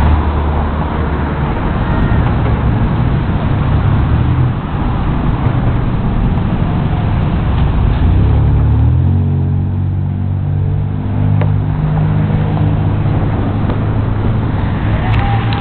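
Road traffic: cars driving past close by, with a steady low engine hum that grows stronger about halfway through.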